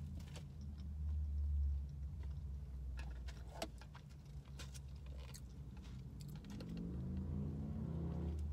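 Chewing with soft mouth clicks over the low, steady rumble of a car cabin.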